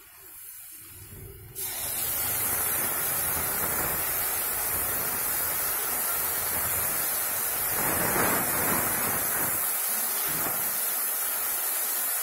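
Wet masala paste of ginger-garlic paste and chilli, coriander and turmeric powders hitting hot oil and fried onions in an iron kadhai: it starts sizzling suddenly about a second and a half in, then hisses steadily and loudly, swelling briefly about eight seconds in.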